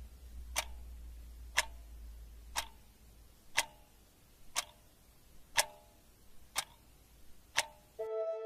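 A clock ticking, one sharp tick about every second, eight ticks in all. Soft music comes in just before the end.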